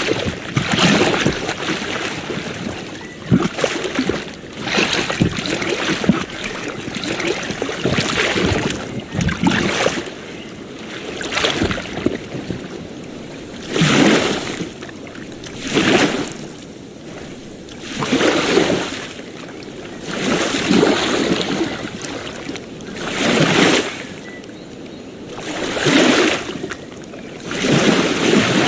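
Small ocean waves washing onto a shore. Each surge swells and fades in a steady rhythm, about every two to three seconds.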